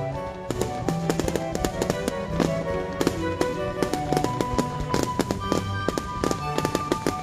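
Fireworks bursting and crackling in rapid succession, many sharp bangs close together, over continuous music.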